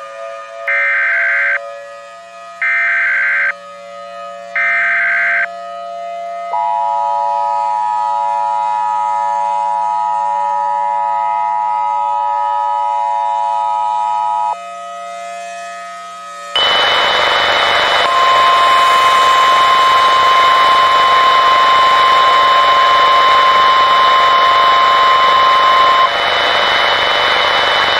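Emergency Alert System broadcast tones: three short bursts of SAME header data tones, then the two-tone EAS attention signal held for about eight seconds, over a wavering siren-like tone. About sixteen seconds in, loud radio static with a steady high whine comes in, and a single-pitch NOAA Weather Radio alert tone sounds for about eight seconds.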